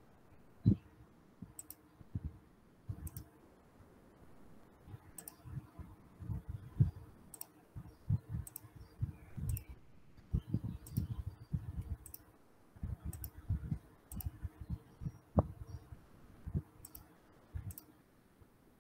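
Irregular clicks and soft low thumps from handling a computer's mouse and keyboard, picked up by the computer's microphone over a faint steady hum.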